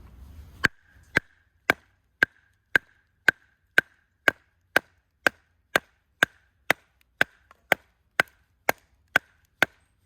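Firewood being chopped: about twenty sharp, even blows, roughly two a second, each with a brief ring.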